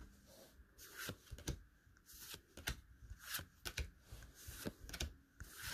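Trading cards being flipped through by hand: faint, irregular slides and flicks of card stock as each card is moved from the front of the stack to the back.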